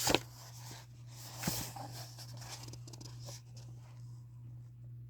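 Faint handling noises of a picture book and a soft tap about a second and a half in, over a steady low electrical hum.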